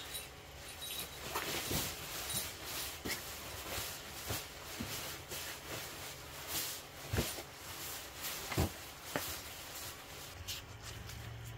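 Rustling and crinkling of a nylon poncho-liner blanket being stuffed and spread out on a cot, in irregular swishes with a few sharper crinkles about seven and eight and a half seconds in.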